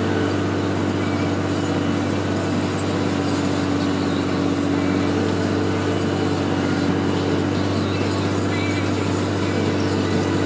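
Diesel engine of a Valmet 902 forest machine running steadily under load, a constant drone heard from inside the cab while it pulls a Donaren 280 disc trencher for soil scarification.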